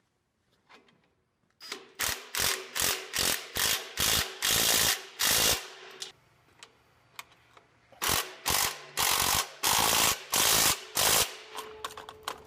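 A ratchet mechanism clicking in quick repeated strokes, about three a second, in two runs separated by a pause of a couple of seconds, with a few fainter clicks near the end.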